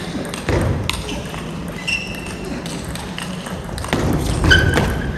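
Table tennis rally: the ball clicking off the bats and the table in a series of sharp knocks.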